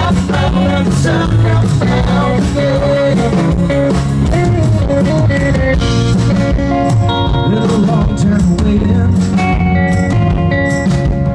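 Live rock band playing a song loudly, with electric guitar over bass and drums, in an instrumental passage between sung lines.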